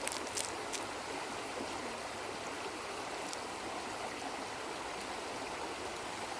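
Steady rushing of a stream's flowing water, with a few light clicks in the first second.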